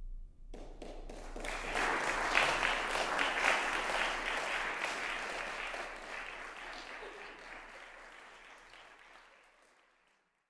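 Audience applauding: the clapping breaks out suddenly about half a second in, is loudest a couple of seconds later, then gradually dies away to silence near the end.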